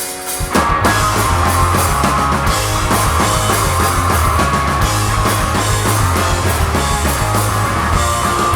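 Punk rock band playing the instrumental intro of a song live: distorted electric guitars, bass and drum kit come in together about half a second in and drive on at a fast, steady beat.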